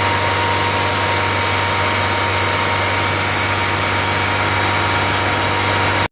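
1998 Honda Accord engine held at a fast idle of about 2000 rpm with the AC running, a cooling fan blowing steadily alongside; the condenser fan is not running, which is why high-side pressure is climbing. The sound cuts out for an instant at the very end.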